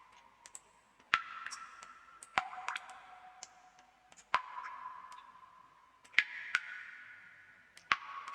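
Water drops falling one at a time into water, each a sharp plink followed by a ringing tone that fades over a second or two. There are about six louder drops at uneven intervals, each at a slightly different pitch, with fainter ticks between them.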